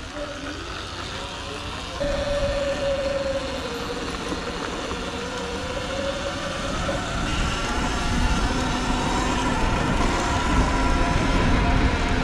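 Sur-Ron electric dirt bike being ridden off-road: a whine from the electric motor and drivetrain that wavers up and down in pitch with speed, over a steady low rumble. It gets louder about two seconds in.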